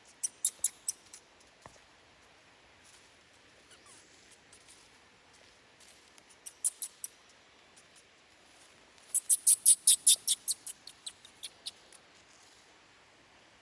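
A baby monkey giving quick runs of sharp, high-pitched squeaks, about seven a second. A short run comes at the start, a brief one about halfway, and the longest and loudest run a little past two-thirds of the way in.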